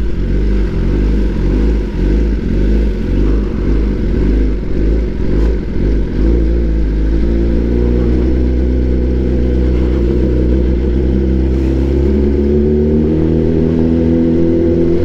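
Kawasaki ZX-10R inline-four engine running through a very loud aftermarket exhaust with its dB killer removed, its note rising and falling unevenly at low speed, then holding a steady note from about seven seconds in.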